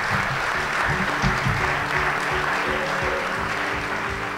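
Audience applauding, with music coming in quietly underneath about half a second in.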